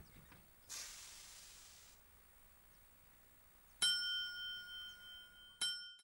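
A bright metallic chime struck once about four seconds in, ringing on as several steady tones, then struck again near the end: a bell-like musical sting.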